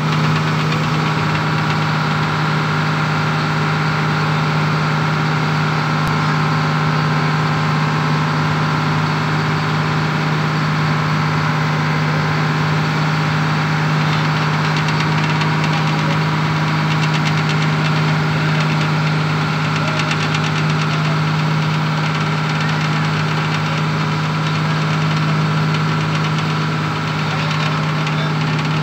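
Engine of a wooden river boat running steadily at a constant pitch, with no change in speed.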